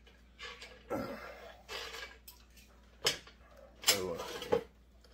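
A man coughing and clearing his throat in a few short bursts, the loudest about four seconds in.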